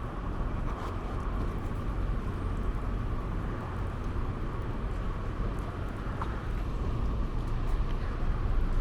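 Steady city street ambience: a constant low rumble and hiss with no distinct events.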